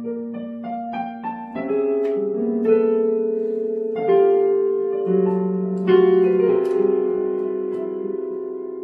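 Digital piano played slowly, with chords and single notes struck every second or so and left to ring. The loudest chord comes about six seconds in.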